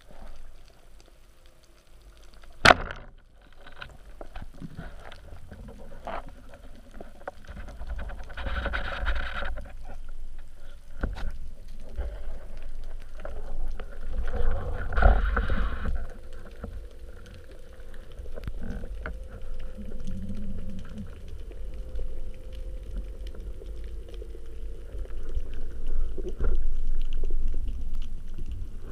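Speargun firing underwater: one sharp snap about three seconds in, followed by low rumbling water noise as the diver swims up toward the surface.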